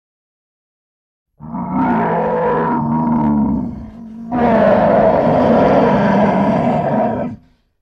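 Lion roar sound effect: after about a second and a half of dead silence, two long, rough roars follow one another with a brief dip between them.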